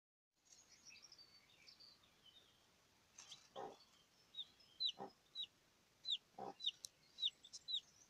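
Newly hatched chicks peeping beside a brooding hen: faint cheeps at first, then from about halfway a steady run of loud, high, downward-sliding peeps, about two a second. Three short low clucks from the hen come in between.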